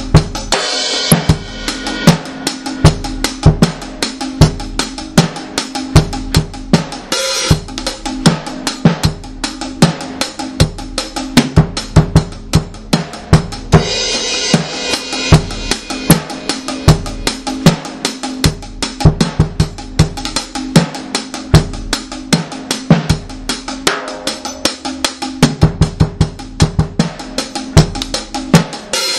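Reggae dub drumming in a one-drop pattern: steady, dense bass drum and snare strikes with cymbals over a steady low held tone.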